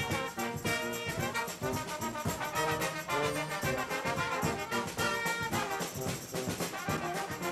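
Street brass band playing: a sousaphone bass line under trombones and trumpets, with drum hits.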